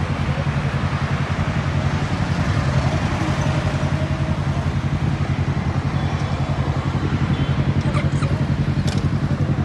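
Sport motorcycle engines idling with a steady, even exhaust pulse. A few light clicks near the end.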